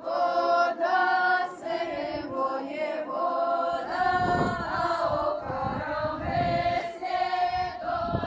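A group of women's voices singing a Belarusian folk round-dance (karahod) song for the spring St George's Day rite, in long held notes with short breaks between phrases.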